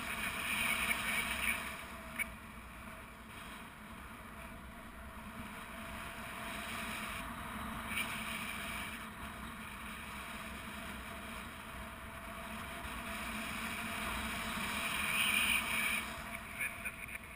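Wind rushing over a GoPro microphone on a paraglider in flight: a steady rushing noise that swells near the start and again near the end.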